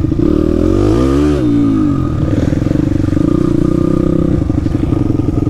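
Daytona 190 pit-bike engine running close by, a four-stroke single. About a second in it revs up and drops back, then it carries on at a steady speed.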